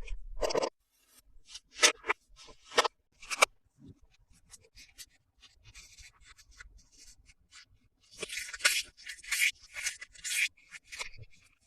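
Toy packaging being handled during an unboxing: a few sharp clicks and taps, faint scattered ticks, then a run of rustling and crackling from about eight seconds in.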